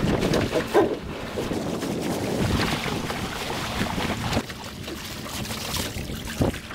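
Wind buffeting the microphone and water rushing and splashing along the hull of a small sailing dinghy under way in choppy water, rising and falling in irregular gusts with a few brief sharp splashes.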